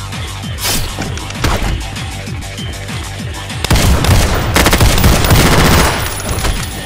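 A rapid burst of pistol-fire sound effects, the loudest part, beginning about halfway through and lasting a couple of seconds, over background music with a steady beat.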